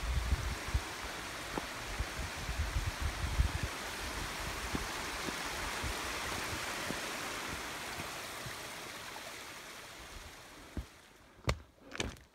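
Creek and small waterfall rushing: a steady hiss of water that swells toward the middle and fades over the last few seconds. Low thuds in the first few seconds and a few footsteps on the rocky trail near the end.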